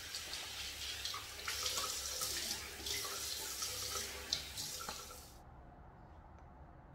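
Tap water running into a sink while soap is rinsed off a face, with a few splashes from the hands; the water stops about five seconds in.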